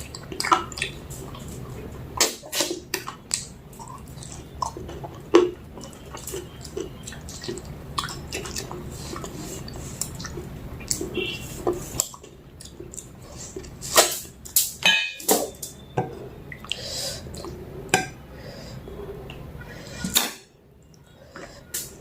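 Close-up eating sounds of a meal of rice and mutton curry: irregular clicks and clinks of a plate and utensils, over a steady low hum.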